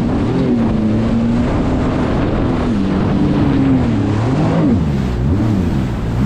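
Sea-Doo GTR 230 jet ski's supercharged three-cylinder Rotax engine under way, its note rising and falling several times as the throttle is worked through the waves, over a rush of water spray and wind.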